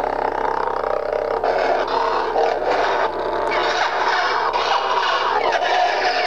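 Electronic lightsaber sound font from the saber's Igniter2 soundboard and 23 mm speaker: a loud, continuous, rough-textured blade hum that swells and dips a little as the lit blade is held and moved.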